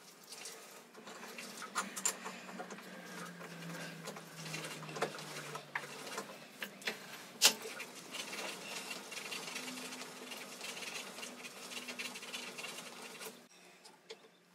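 Boxford lathe turning slowly while a hand-held tap in a tap wrench cuts a thread into the workpiece in the chuck: a faint low motor hum with scattered clicks and scrapes from the tap cutting. The lathe stops about a second before the end.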